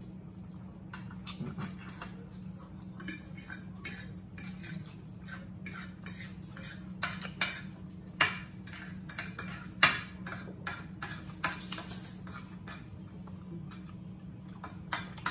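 Metal forks and a knife clinking and scraping against plates as steak is cut and eaten, in irregular short clicks with a few sharper clinks, over a steady low hum.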